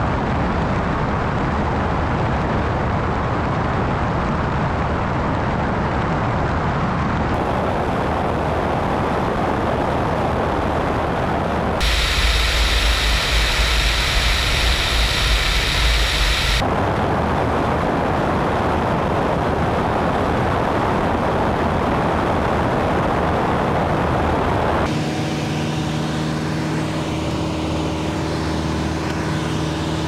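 Light single-engine propeller airplane in cruise: a steady engine drone mixed with heavy airflow noise. From about 12 to 16 seconds the sound is a louder wind rumble and hiss, as heard from outside the airframe. From about 25 seconds it becomes a smoother engine hum with a clear steady pitch, as heard inside the cabin.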